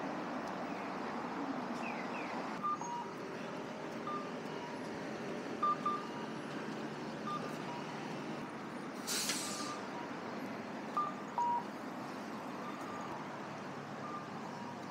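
Steady traffic noise at a busy city street intersection, with short electronic beeps now and then and a loud burst of hiss about nine seconds in.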